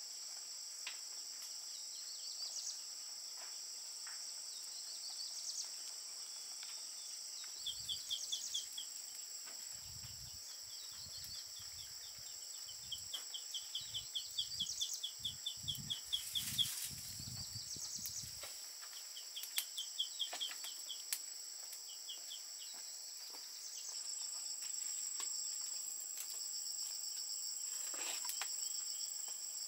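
Steady, high-pitched chorus of insects with rapid pulsing trills, joined in the middle by a lower chirping trill. A series of dull thumps comes partway through.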